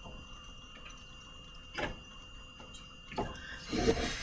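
Quiet room tone in a classroom: a faint steady background with two short clicks and a brief rustle near the end.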